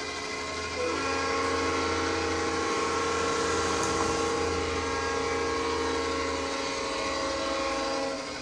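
ESU sound decoder in a G-scale AristoCraft Dash-9 model locomotive sounding a long diesel horn blast, several notes held together, starting about a second in and stopping just before the end. Under it runs the decoder's steady diesel engine sound, which the owner finds closer to an EMD 16-645 than to the Dash-9's own engine.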